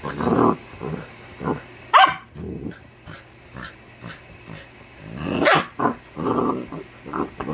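Yellow Labrador puppy play-growling and grunting in short bursts while mock-biting, with one sharper, higher call about two seconds in.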